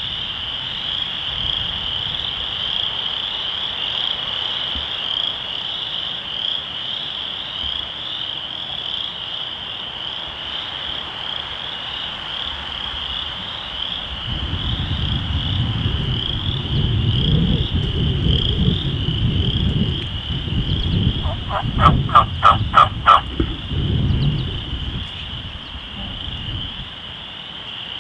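A dense chorus of frogs calling, a steady high-pitched trilling throughout. In the second half, low rustling noise comes in, and about three-quarters of the way through a run of about six loud turkey yelps sounds.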